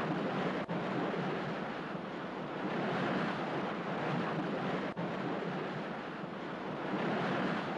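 Steady rushing of sea water and waves, with a little wind, that cuts out for an instant twice.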